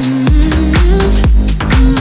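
Electronic dance music with a steady beat and a held synth melody.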